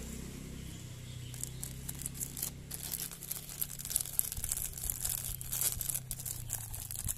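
Small clear plastic packet being torn open and crinkled by hand: a dense run of crackles and rustles, thickest from about a second and a half in.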